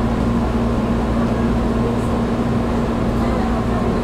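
Steady hum of a stationary JR Kyushu 415 series electric train's onboard equipment, heard inside the cab, with a constant low tone and an even rumble beneath it.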